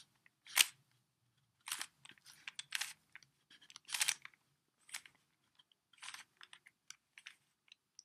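Stickerless plastic 3x3 Rubik's cube turned by hand through a sequence of layer turns. Each turn gives a short plastic clack, in an uneven string of a dozen or so.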